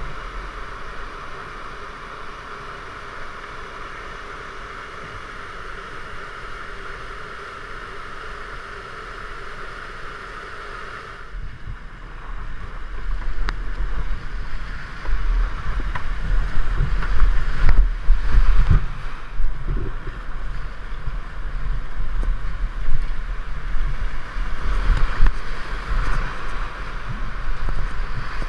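Whitewater rapid rushing steadily. About eleven seconds in the sound turns louder and rougher, with splashing and low rumbling thumps, as a whitewater canoe runs down through the waves.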